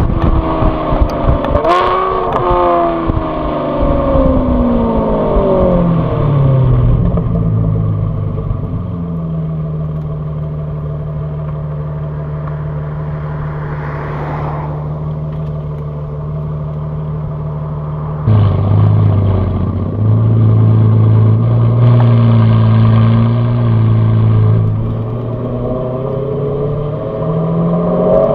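Modified Aston Martin V12 Vantage S's V12 engine and exhaust, heard close to the tail. It revs high with a quick dip and rise about two seconds in, then the revs fall away to a steady low drone. About two-thirds through it suddenly gets louder at low revs, and near the end the revs climb again. An oncoming car swishes past midway.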